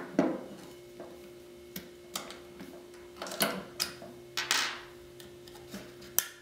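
A string of irregular clicks and light knocks as the takedown push pins are pushed out of an HK416 .22 rimfire rifle and its upper and lower receivers are handled and worked apart, with a faint steady hum underneath.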